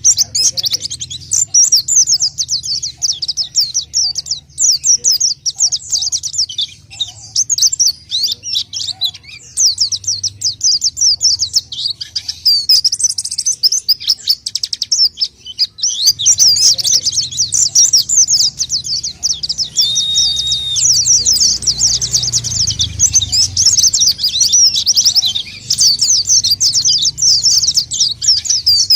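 Pleci (white-eye) singing a fast, unbroken twittering song, high-pitched and vigorous, with short pauses and one brief steady whistle about two-thirds through.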